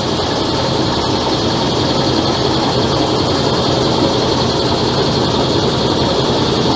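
Dodge pickup's 5.9-litre Cummins turbodiesel inline-six running steadily and loudly at an even pitch.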